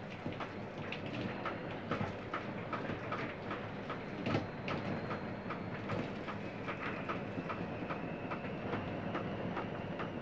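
Storm rain driven by high wind, a steady rushing hiss with frequent irregular taps, several a second, from rain being forced through the roof.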